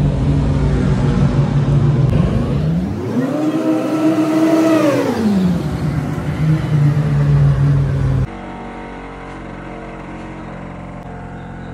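Porsche 911 GT3 Cup race car's flat-six engine idling, rising smoothly in pitch and falling back to idle once in the middle. About eight seconds in it cuts off to a quieter steady hum.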